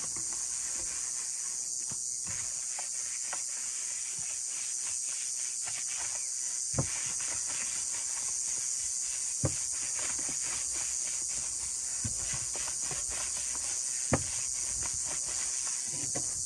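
Dusting off the inside of a bare 16-inch floor tom shell: a run of quick rubbing and brushing strokes, with a few light knocks against the shell, three of them clearer. A steady high-pitched hiss runs underneath.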